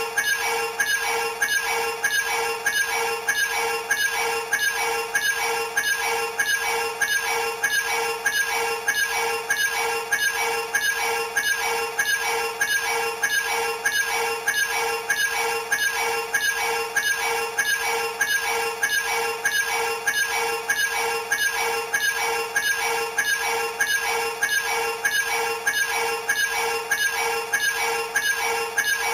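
Electronic sound effect from an Ultraman Z Original Key Memorial Edition toy key, looping: a short chiming figure repeats at an even pace over a held tone, the same all through.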